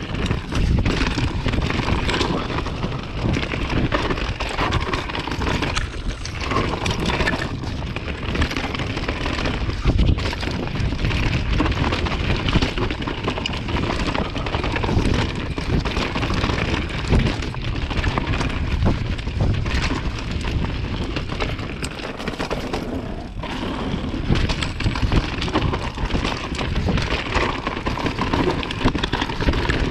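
Trek mountain bike riding down a muddy, stony singletrack: a continuous rumble and clatter of tyres and frame over loose gravel and rough ground, with wind buffeting the camera's microphone.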